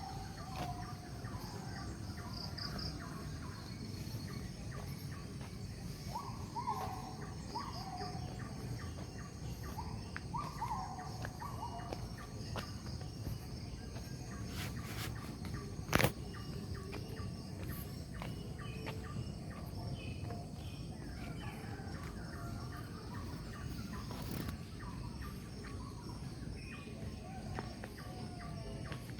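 Rural ambience: birds call in short runs of notes a few times, over steady high insect chirping and a constant low background hum. A single sharp click about halfway through.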